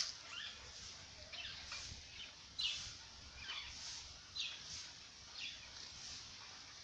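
Birds chirping: a series of short, falling calls, about one or two a second, over faint background noise.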